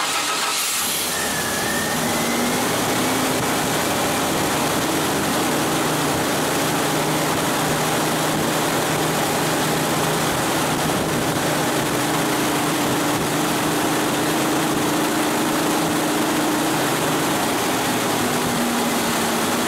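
1989 Chevy S10's engine idling steadily just after start-up, its accessory belt running over a new idler pulley fitted in place of the deleted A/C compressor, with no squeaks or rattles.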